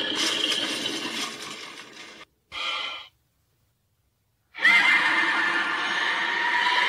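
Shrill creature-cry sound effect for a dragon, with a whinny-like quality. It fades out about two seconds in, gives one short burst, and cuts to dead silence for about a second and a half. Then a loud new cry starts with a rising squeal and holds steady.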